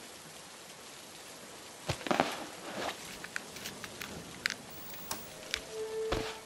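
Steady rain falling, with scattered drips and a few sharp knocks, the loudest about two seconds in. A held tone comes in near the end.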